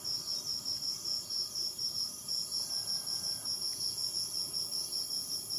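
Crickets chirping in a steady, rapid pulsing trill, several pulses a second, high in pitch.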